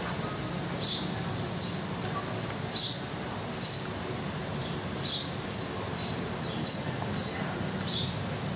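A small bird chirping repeatedly: about ten short, high chirps at uneven spacing, coming closer together in the second half, over a steady low background rumble.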